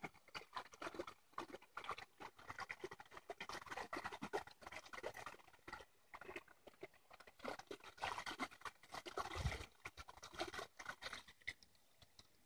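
Dogs lapping and mouthing at a garden hose's stream where it spills into mud, making faint, irregular wet splashes and lapping sounds. These are busiest around eight to nine and a half seconds in, with a low thump near the end of that stretch, and thin out near the end.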